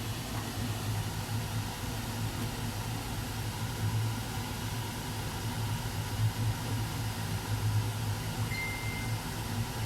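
Steady low mechanical hum with an even, fan-like rush. A short, high beep sounds briefly near the end.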